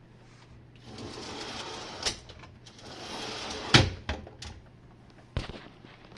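Jenn-Air dishwasher near the end of its Quick Wash cycle: two short stretches of swishing noise with sharp clunks between and after them, the loudest clunk near the middle, over a steady low hum.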